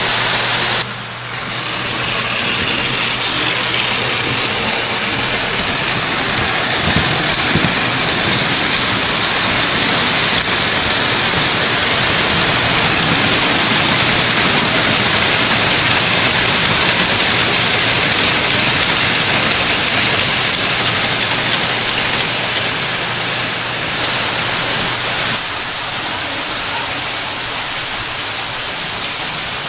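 O-gauge three-rail toy train running on metal track: a steady rushing rumble of wheels on the rails over a low electric hum. The sound swells toward the middle and eases, and the hum drops out near the end.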